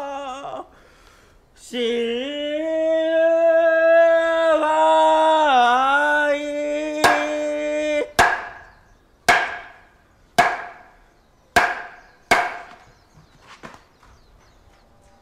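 A Buddhist monk's solo chant on long held, slowly bending notes, broken by a short pause. Then a wooden board is struck with a wooden mallet: six sharp wooden knocks about a second apart, the last one coming sooner, followed by a few faint taps.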